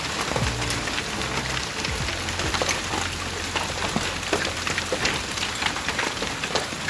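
Hailstorm: rain and hailstones hitting hard surfaces, a steady hiss crowded with many sharp separate clicks from individual stones striking.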